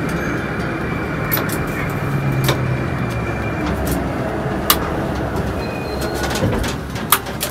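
Metro train braking to a stop in a tunnel, heard from inside the driver's cab: a steady rumble of wheels and running gear, with a thin whine that fades out a few seconds in. Several sharp clicks stand out along the way.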